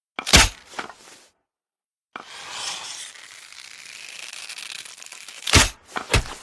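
Bow and arrow sound effect: a sharp thump with a smaller one just after, then about three seconds of rustling, scraping noise, then three quick sharp thumps near the end.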